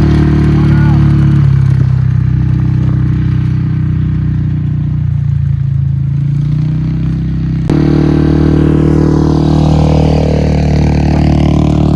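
Yamaha Grizzly ATV's single-cylinder engine running under varying throttle. Its pitch drops about a second and a half in, sags again midway, then jumps back up sharply about eight seconds in.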